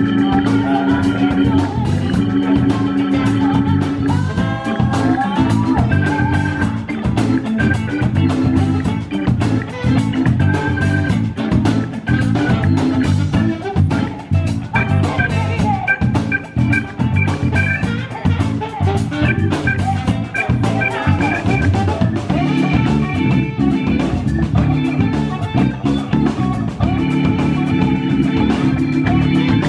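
Live band playing: electric guitars and drum kit with saxophone, the beat held steady throughout.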